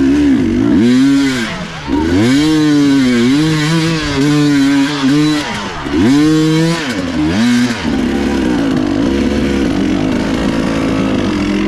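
Off-road racing motorcycle engine revving up and down repeatedly as the throttle is worked, then running at a steadier, lower pitch from about eight seconds in.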